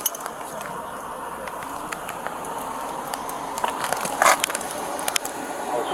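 Rustling and scattered sharp clicks close to a body-worn camera's microphone, over a steady hiss, with a louder clatter about four seconds in: handling noise as an officer moves and works with his hands.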